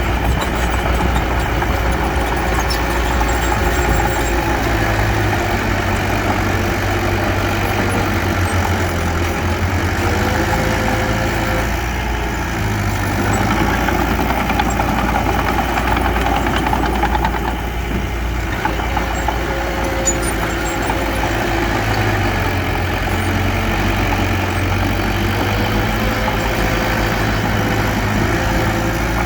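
Diesel engine of heavy earthmoving machinery running steadily, its pitch rising and falling a little a few times as the load or throttle changes.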